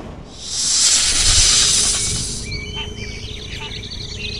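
A loud hissing whoosh swells and fades over about two seconds, then birds chirp in short repeated calls over a faint steady hum.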